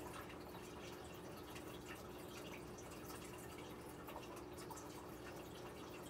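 Aquarium water trickling and bubbling in small drips, over a steady low hum.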